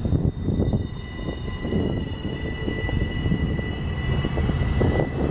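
Double-stack intermodal freight train rolling past: well cars rumbling and clattering over the rails, with a steady high whine over the rumble.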